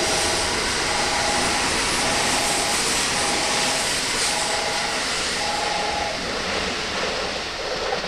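A JR West 117 series electric train pulling away while a Thunderbird limited express runs through the station on another track: a steady rush of wheel and running noise that eases slightly near the end. Over it, a two-tone chime repeats about once a second.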